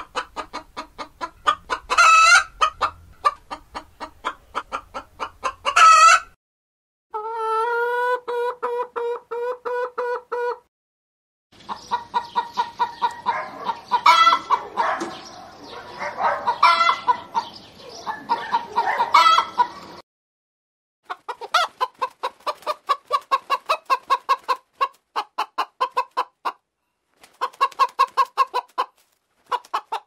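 Hens clucking in quick runs of short clucks, broken by louder drawn-out squawks. The sound comes in several separate takes with brief silent gaps between them. In one take, several birds call over a noisy background.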